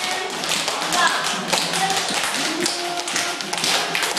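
A group of children's tap shoes clicking on a hard floor, many quick, uneven taps from several dancers at once.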